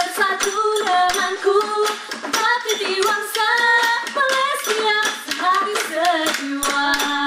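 Two female singers singing a melody into microphones over a steady percussion beat of sharp, clicking strokes from drums and struck objects.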